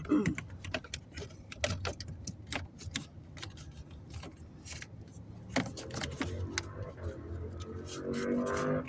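Irregular light plastic clicks and taps as the cabin air filter and its housing behind a 2015 Ford F-150's glovebox are handled and fitted into place.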